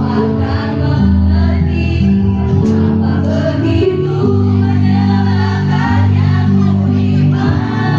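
A women's choir singing together over instrumental accompaniment that holds long, steady low notes.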